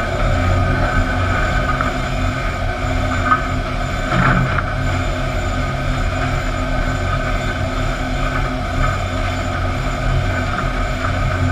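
Steady din of sawmill machinery: lugged chain conveyors and rollers running under a load of wooden fence boards, with a steady hum and a few short knocks, the loudest a clunk a little over four seconds in.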